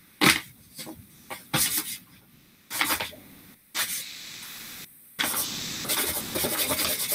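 Sheet of paper rustling and scraping as a dull sword blade is rubbed and sawed against it without cutting. There are several short rustles at first, then a longer stretch of continuous scraping from about five seconds in.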